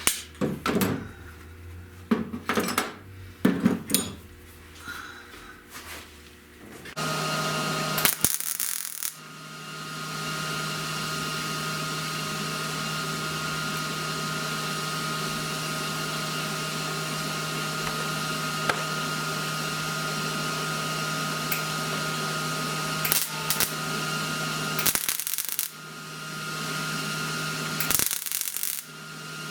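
A few light metallic clinks and taps, then an angle grinder starts about seven seconds in and runs steadily with an even whine, grinding on the steel door-corner patch. It stops briefly twice near the end.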